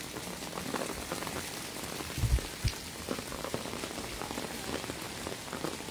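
Rain falling on a wet concrete street, a steady patter of many small drops. A brief low thump comes a little past two seconds in.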